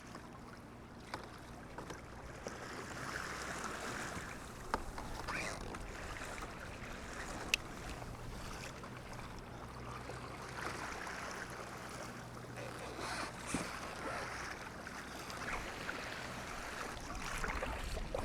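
Choppy sea water sloshing and splashing against a fishing kayak's hull as it moves through rough, white-capped water, with wind noise. A few small sharp knocks about one, five and seven and a half seconds in.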